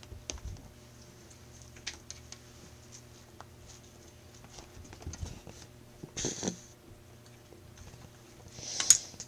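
Kittens play-fighting on carpet: scattered soft taps and scuffles from their paws and toy, with two short scratchy bursts about 6 and 9 seconds in, the second the loudest.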